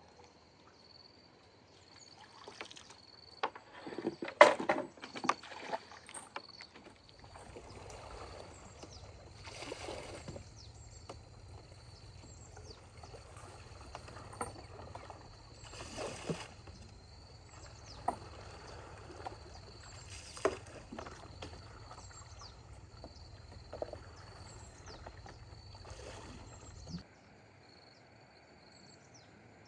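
Bamboo raft being poled along a river: the bamboo pole splashes and knocks in the water, with a cluster of sharp knocks early on and then a stroke about every two seconds over a low rumble. A thin high insect buzz with small chirps runs underneath, and near the end the water sounds cut off, leaving the faint insects.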